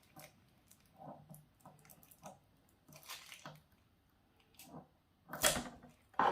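Small plastic toy shackle pieces being worked free of tight sellotape wrapping: scattered light clicks and taps, with two louder scratchy crinkling rustles, one about three seconds in and one near the end.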